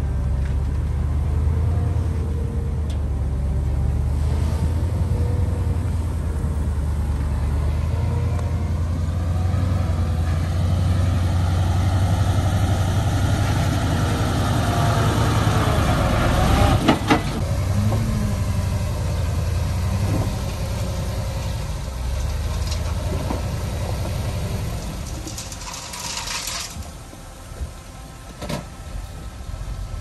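Diesel engines of heavy earthmoving machinery, a bulldozer and dump trucks, running with a steady low drone that swells toward the middle. A couple of sharp knocks come about 17 seconds in, and a brief high-pitched sound comes about 26 seconds in, after which the engine sound drops off.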